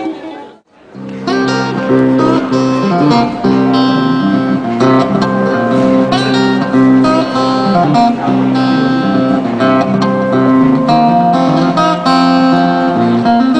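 Guitar music with strummed chords, steady and loud, breaking off briefly about half a second in and then going on.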